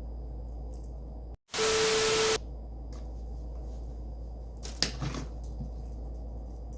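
Steady low hum of room tone. About a second and a half in, the sound cuts out for an instant, then a loud burst of static hiss with a steady tone lasts under a second. Near the five-second mark there is a single sharp knock.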